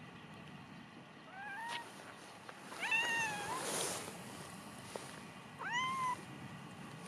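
Domestic cat meowing three times, short calls about two seconds apart, the middle one the loudest.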